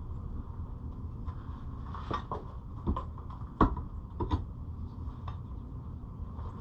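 Scattered knocks and clunks, five or six of them, the loudest about three and a half seconds in, over a steady low background rumble.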